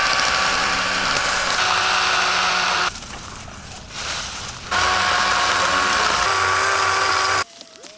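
DeWalt 12-inch battery-powered electric chainsaw run in two bursts of about three seconds each, with a short pause between; its motor gives a steady high whine.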